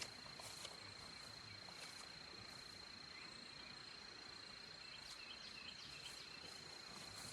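Near silence, with a faint, steady, high-pitched cricket trill.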